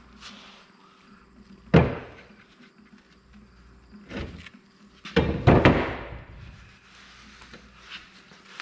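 Metal knocks and clunks from the cast-iron Oliver 1650 power steering box housing being handled while it drains: one sharp knock about two seconds in, a lighter one around four seconds, and the loudest clatter of several knocks just after five seconds.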